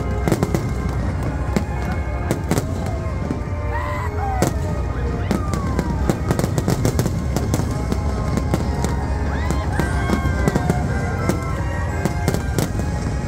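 Aerial fireworks going off in rapid succession: frequent sharp bangs and crackles over a constant low rumble. Orchestral music plays alongside, and scattered whoops rise from the crowd.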